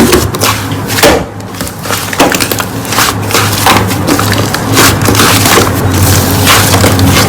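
Slime being worked by hand, giving loud, repeated crackling, crunching squishes about one or two a second.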